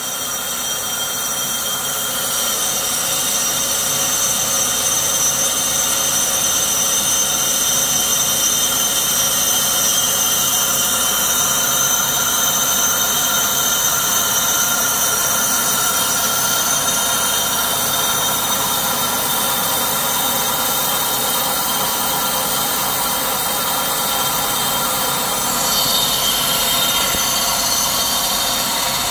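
Precision Matthews PM-1127VF-LB variable-speed metal lathe running under power, turning a large metal tube while the cutting tool takes a pre-finish pass. A steady machine whine with several held tones sits over a high hiss, and the high part of the sound shifts a few seconds before the end.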